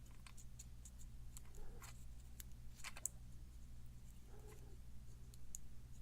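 Faint, scattered small metallic clicks and scrapes of a thin shim being worked into a pin-tumbler lock cylinder, which doesn't quite want to go in. Under them runs a steady low hum.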